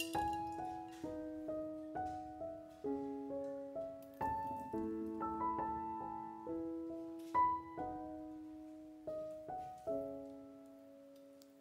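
Background music: a slow solo piano melody of single struck notes that ring and fade.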